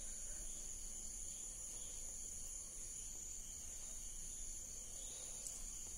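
Crickets chirring in one steady, unbroken high-pitched drone, with a single faint click near the end.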